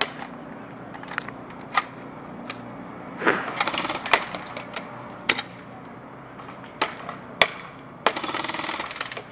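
Airsoft guns firing: scattered single sharp pops, and two rapid automatic bursts, one about three seconds in and one about eight seconds in.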